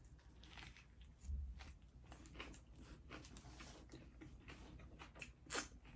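Faint close-up chewing of a mouthful of Subway sub: soft, irregular mouth clicks and wet chewing noises, with a low thump about a second in.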